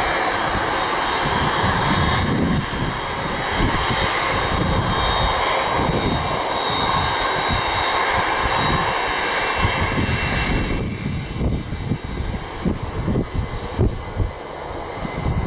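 Boeing 747-400F's four turbofan engines running: a loud, steady rush of jet noise with a thin high whine. About two-thirds of the way through the rush fades, leaving a low, uneven rumble.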